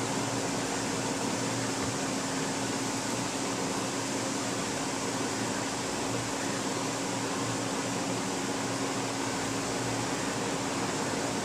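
Desktop PC's cooling fans running with a steady whir and a low, constant hum.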